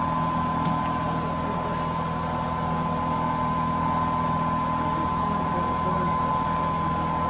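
Class 24 diesel locomotive's Sulzer six-cylinder engine running at a steady idle: a low hum with a steady high whine over it.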